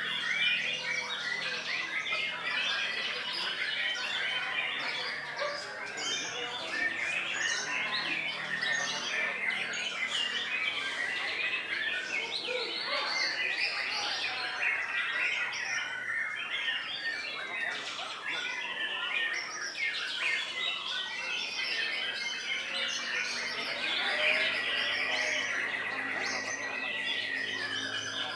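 Many caged white-rumped shamas (murai batu) singing at once: a dense, unbroken chorus of overlapping chirps, trills and whistles, with a long held whistle near the end.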